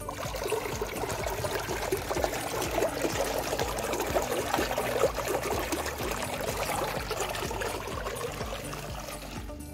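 Water pouring out of the end of a white PVC drain pipe and splashing onto grassy ground as a tarpaulin fish pond is drained.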